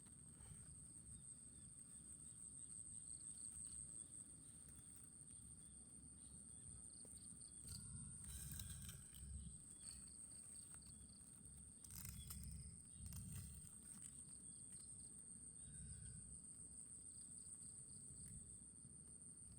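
Faint outdoor ambience of insects, cricket-like, trilling steadily at a high pitch, with a few low rumbles and rustles swelling under it.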